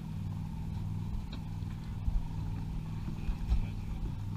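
A steady low engine hum, with a few dull low thumps about two seconds in and again near three and a half seconds.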